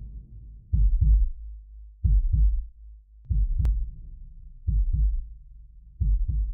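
Logo-intro sound effect: deep, heartbeat-like double thuds repeating about every second and a quarter, five times, with a single sharp click about three and a half seconds in.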